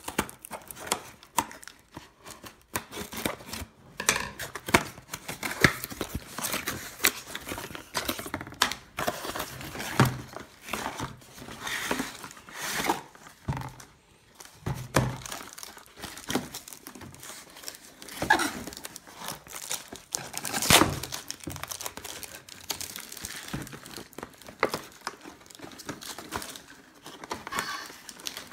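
Cardboard and paper packaging being cut with scissors, torn open and handled: irregular crinkling, tearing and rustling with occasional sharp knocks, the loudest about twenty seconds in.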